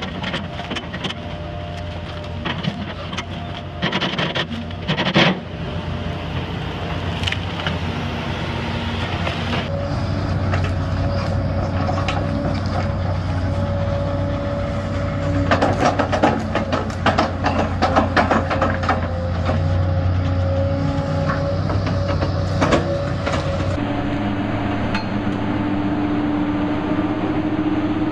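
Heavy hydraulic excavators' diesel engines running under load, with repeated knocks and cracks as tree stumps and roots are torn out and shaken. The sound changes abruptly about ten seconds in and again near the end. There is a dense rattling clatter in the middle.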